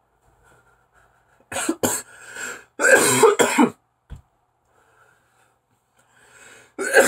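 A man coughing hard in repeated fits after a deep hit from a THC vape pen: two short coughs about a second and a half in, a tighter run of coughs around three seconds, and two more near the end.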